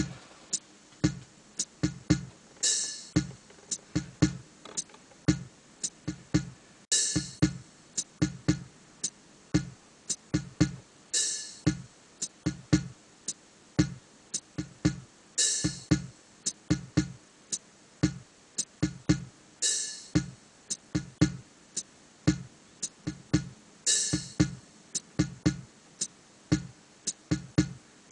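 Background music with a steady beat and a bright cymbal-like swell about every four seconds.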